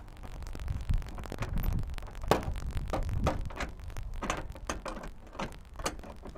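Heavy steel chain clinking and rattling against a welded steel mirror bracket as it is handled and locked in place: a string of irregular sharp metallic clinks over a steady low rumble.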